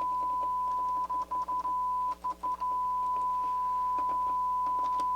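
Steady test tone played through the Pioneer SX-626 receiver, cutting out in several short gaps between about one and two and a half seconds in, with faint clicks from its controls being worked. The dropouts point to an intermittent internal fault or a dirty speaker switch.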